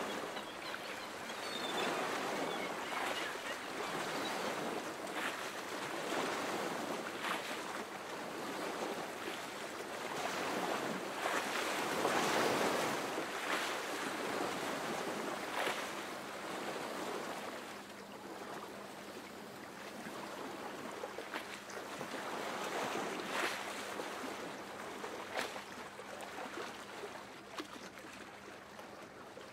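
Sea waves washing on a shore: a rushing noise that swells and fades every few seconds, loudest around the middle.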